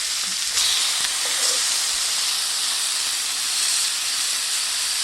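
Hamburger patties frying in a skillet, with a steady sizzle.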